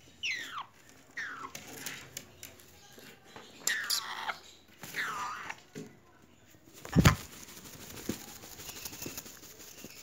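Congo African grey parrot chicks calling, a series of whistle-like cries that each fall sharply in pitch. About seven seconds in there is one loud thump, followed by faint rapid clicks.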